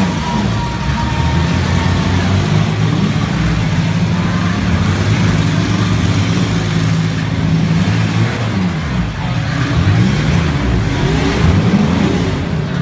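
Demolition derby cars' engines revving hard, the pitch rising and falling again and again as they drive and hit each other, several engines overlapping.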